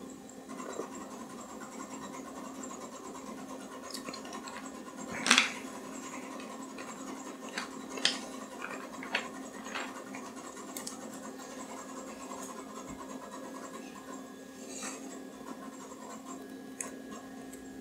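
A vintage iMac G3's disk drives working as the Linux installer loads: a steady low hum with scattered scratchy clicks and seeks. The loudest comes about five seconds in, with a few more over the next several seconds.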